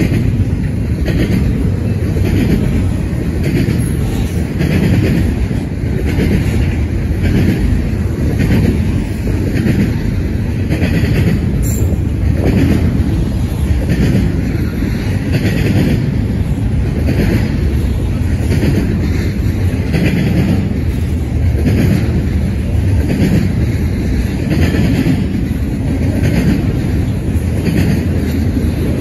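Double-stack container well cars of a freight train rolling past: steel wheels on rail making a steady rumble, with a regular clatter of wheels over the rail about once a second.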